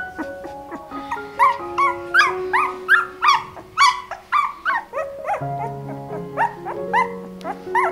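Newborn puppy whimpering and squeaking in a quick run of short rising cries, about three a second, thinning out after the first half; the sign of a hungry puppy searching for milk. Background music with sustained notes plays underneath.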